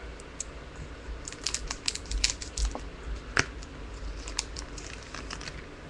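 Trading cards and their pack wrapper being handled: scattered crinkling and small sharp clicks as the cards are shuffled and turned over.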